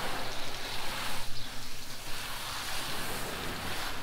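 Water spraying steadily against the painted door panels of a pickup truck, rinsing off iron remover.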